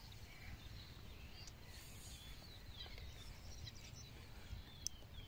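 Faint bird calls, short chirps and warbles scattered throughout, over a steady low rumble, with a single sharp click near the end.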